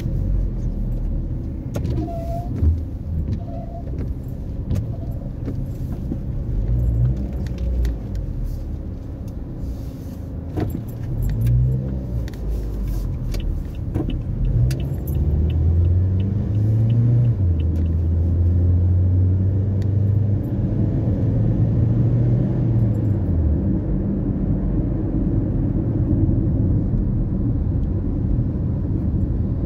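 Car engine and road noise heard inside the cabin while driving, the engine note rising and dropping as the car accelerates and changes gear. Light rattles and clicks come through in the first half.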